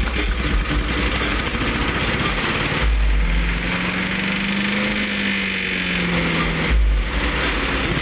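Small gasoline engine of a wood chipper-shredder running, its speed rising and then falling again over a few seconds, with two dull low thumps about four seconds apart.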